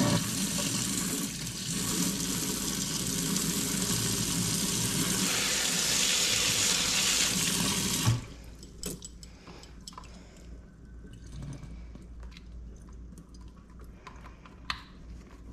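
Kitchen faucet running at full flow into the sink, its blocked filter screen cleaned out and flow restrictor removed. The water is shut off suddenly about eight seconds in, followed by a few faint clinks.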